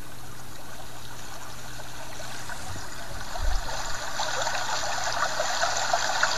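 Recorded waterfall sound from a relaxation app playing through a tablet's speaker: a steady rush of flowing water that grows louder about three seconds in.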